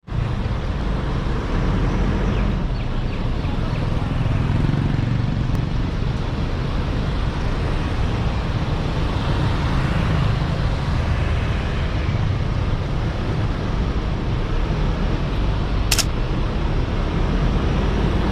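A car driving on a road, its engine and tyre noise steady, with a single sharp click near the end.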